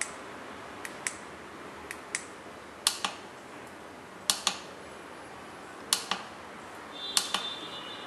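Sharp plastic clicks, mostly in pairs about a fifth of a second apart, about six pairs in all, as the buttons of a small 433 MHz key-fob remote are pressed to switch an LED bulb in a remote-control lamp holder. A short high tone comes with the clicks about seven seconds in.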